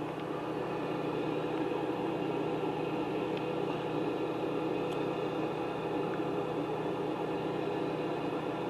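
Steady mechanical hum with a few faint, even tones running through it and no distinct knocks or changes.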